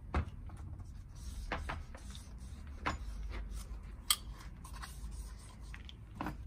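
Gloved hands handling and wiping the aluminium cylinder of a 250 cc ATV engine while oiling its bore: rubbing and rustling with scattered sharp clicks and clinks, the loudest near the start and about four seconds in.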